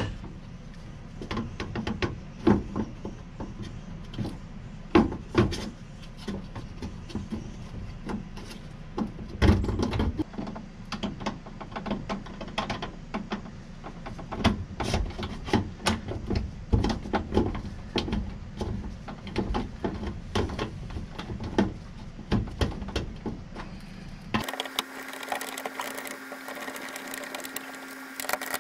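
Irregular clicks, knocks and scrapes of a hand screwdriver driving screws into the storage tube's bracket under an RV. About 24 seconds in, a steady mechanical hum takes over.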